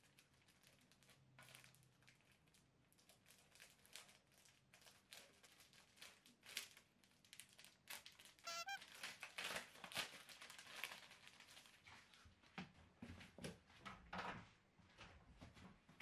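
Plastic wrapping of a replacement ventilation-fan filter cover crinkling as it is handled and opened, a run of soft crackles that gets busier around the middle, with a short squeak just past halfway.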